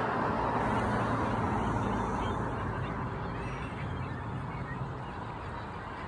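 A large flock of seabirds on the water calling all at once, a dense chorus of honking and squawking calls, slowly growing quieter.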